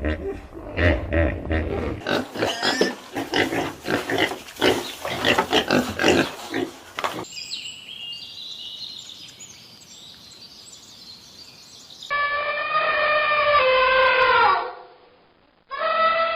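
A run of separate animal calls cut together: rapid rough calls for the first seven seconds, then a faint high chirping, then two long pitched calls, each dropping in pitch as it ends.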